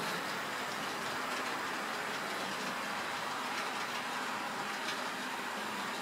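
Model train of three VR locomotives and a long rake of grain wagons running along the track: a steady whirring hiss of motors and wheels, with faint irregular clicks from the wheels over rail joints.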